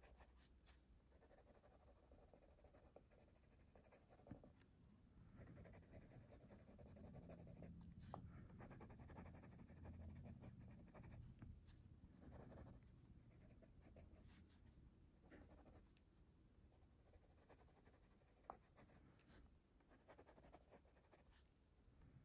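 Faint scratching of a Faber-Castell Polychromos colored pencil shading on paper, swelling and fading with the strokes. A few brief ticks are heard.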